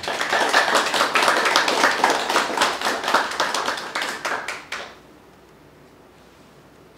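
A small audience clapping, with separate claps audible, dying away about five seconds in.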